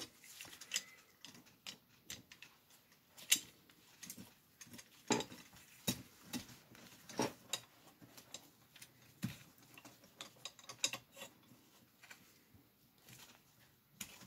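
Irregular small metallic clicks and light knocks of an M1 carbine's bolt and receiver parts being worked by gloved hands as the bolt is manoeuvred free of the receiver.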